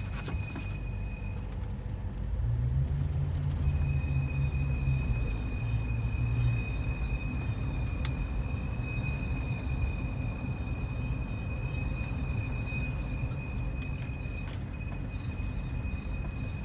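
2005 Nissan Murano with a steady high-pitched squeal over the low rumble of the car, a squeak that appeared after a new axle was fitted. The squeal drops out for a couple of seconds near the start and briefly again near the end.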